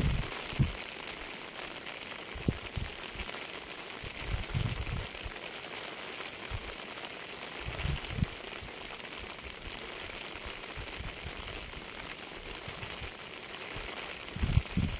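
Steady hiss of falling rain, with irregular low thumps now and then.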